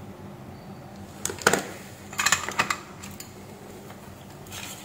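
Small hand tools knocking and clicking against the workbench as they are put down and handled: one sharp knock about a second and a half in, a quick cluster of clicks just after two seconds, and a light scrape near the end.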